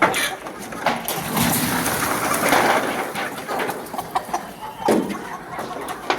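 Chickens clucking at feeding time, with many short clicks and a noisy rush lasting about two seconds from about a second in.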